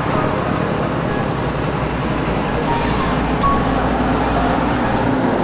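Steady rumble of a running vehicle engine nearby, even in level throughout, with a few brief faint whistle-like tones over it.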